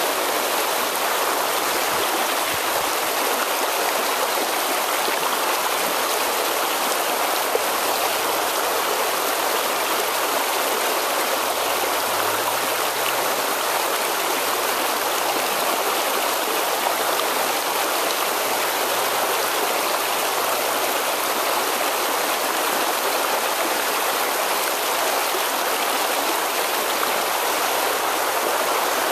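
Fast, shallow river water rushing steadily over rocky riffles.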